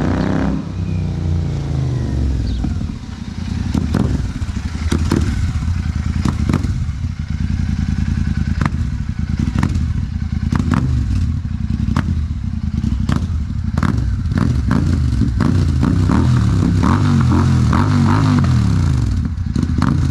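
Royal Enfield Super Meteor 650's parallel-twin engine running loud through an aftermarket Rhino Racing exhaust. Its pitch falls at the start and rises and falls again near the end as the throttle is worked, with many sharp clicks scattered throughout.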